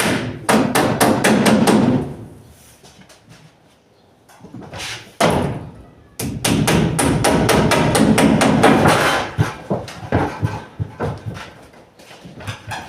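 Hammer driving nails into plywood ceiling boards: runs of quick, sharp strikes, with a pause of a couple of seconds after the first run.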